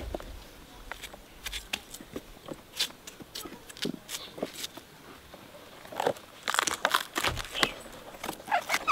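Dry, fibrous coconut palm leaf sheaths crackling and tearing as they are pulled apart by hand, with irregular crunches. The crackling is densest about six to eight seconds in.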